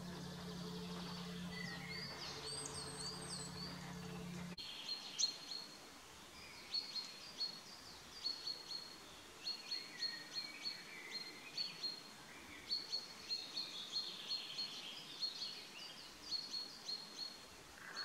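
Woodland songbirds singing, a busy run of short, high chirping notes. For the first few seconds a steady low hum runs underneath, cutting off abruptly about four and a half seconds in.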